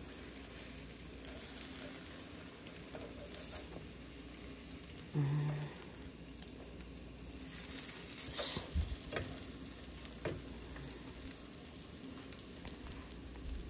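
French toast frying in butter in a nonstick pan, a soft steady sizzle, with a spatula scraping and tapping against the pan as the slices are turned. A brief low hum about five seconds in.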